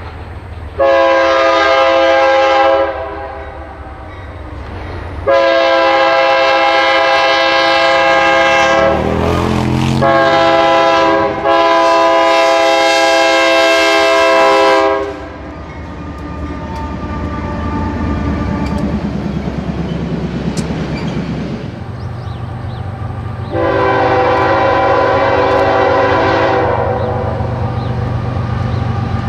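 BNSF diesel locomotive's air horn sounding the grade-crossing signal, two long blasts, a short one and a long one, as it approaches and passes leading a double-stack intermodal train. A steady rumble of the locomotive's diesel engine and the rolling cars follows, and one more long horn blast sounds near the end.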